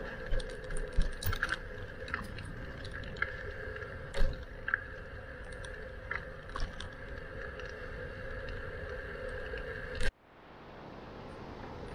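Bicycle ride noise: a steady hum under scattered clicks and knocks, typical of rattles and bumps while riding. About ten seconds in the sound cuts off abruptly, then the background noise fades back up.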